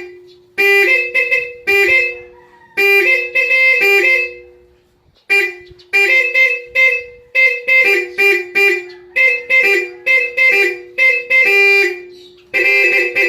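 A pair of Bosch high- and low-tone electric car horns honked over and over in a quick rhythm of short toots and a few longer blasts. The two notes sound sometimes alone and sometimes together, and each blast starts and stops abruptly.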